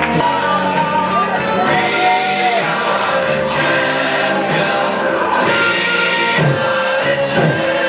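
Music: a song with singing plays steadily throughout.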